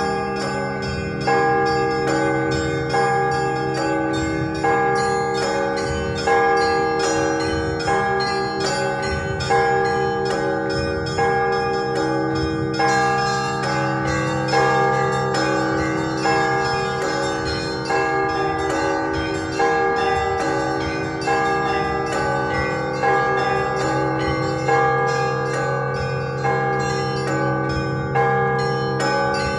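Russian Orthodox festive bell ringing (prazdnichny zvon): small bells struck in a quick, continuous pattern over the sustained ring of larger bells, with a heavier stroke about every two seconds.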